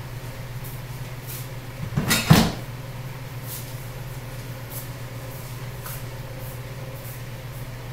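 Two or three quick, hard knocks close together about two seconds in, over a steady low hum.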